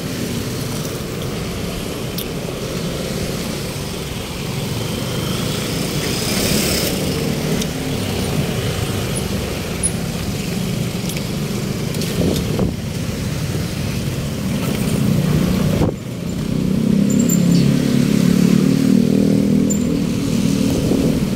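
Street traffic: vehicle engines and tyres rumbling steadily. One vehicle passes about six seconds in, and a louder engine hum sets in near the end.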